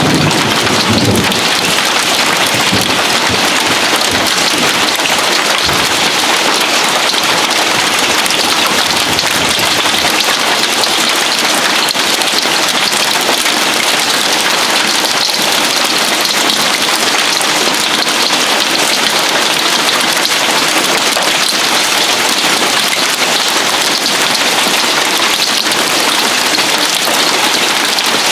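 Heavy hail pelting a house roof and the ground in a steady, dense hiss. A low rumble of thunder sounds in the first few seconds.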